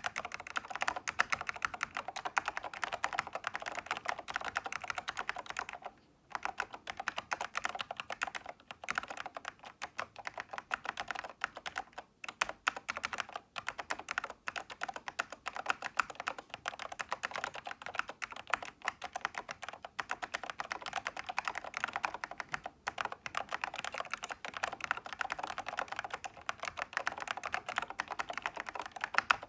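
Continuous fast typing on a Toshiba UE0222P04 keyboard, an OEM version of the Dell 'Big Foot', with ALPS SKCM white switches. The alphabet keys appear to have been modified to remove their click. The typing pauses briefly about 6 and 12 seconds in and again near 23.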